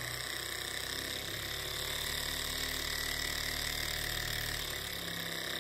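Small alcohol-burner-heated Stirling engine running steadily, its piston and flywheel making a fast, even mechanical hum. Its low note shifts slightly near the end.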